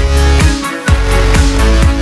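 Electronic dance music with a steady kick-drum beat, about two beats a second, over a heavy bass line. The bass drops out for a moment just under a second in.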